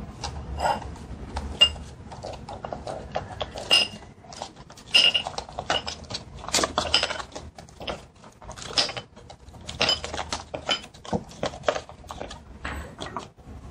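Thin clear plastic chocolate mold crackling and clicking as it is flexed to pop out heart-shaped chocolates, with irregular light clinks of the pieces dropping into a ceramic bowl.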